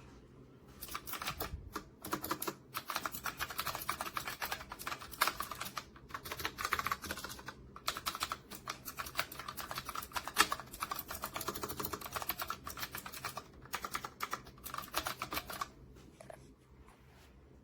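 Typing on a typewriter-style mechanical keyboard with round retro keycaps: rapid runs of key clicks with short pauses, tailing off to a few scattered presses near the end.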